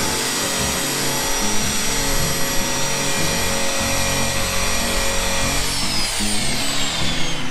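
Electric power tool motor running at a steady high whine, then released about five and a half seconds in and winding down, its pitch falling. Background music plays underneath.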